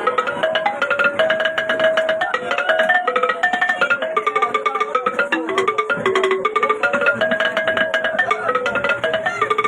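Music: a fast melody of short, struck pitched notes over a quick, dense beat, with no singing.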